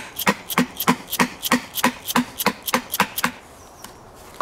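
Orange plastic mallet striking a wood chisel into fresh pine, nibbling out a round entrance hole: sharp knocks about three a second that stop about three seconds in.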